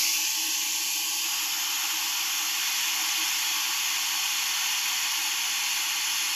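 Hot-air gun blowing steadily at full airflow, a constant hiss with a faint low hum under it, heating a circuit board from below to melt out the solder of a damaged HDMI port.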